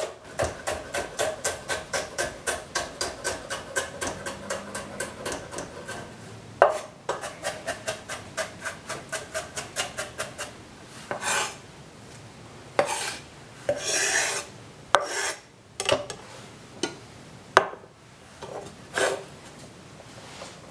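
Chef's knife rapidly rough-chopping celery on a wooden cutting board, about four even strokes a second, with one louder knock about a third of the way in. The chopping stops about halfway, giving way to a few scattered scrapes and taps of the knife and hands on the board.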